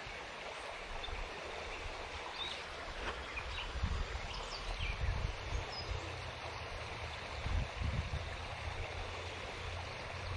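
Small creek running steadily over its bed, an even rush of water, with a few faint high chirps and occasional low rumbles over it.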